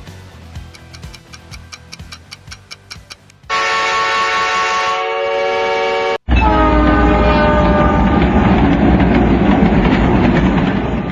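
Train horn blowing a steady chord, cut off abruptly, then a train going by with its horn sounding over loud rumbling until it fades out at the end. Before the horn there is faint ticking under the dying music.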